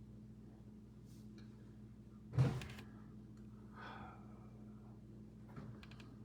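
A single short thump about two and a half seconds in, over a low steady electrical hum.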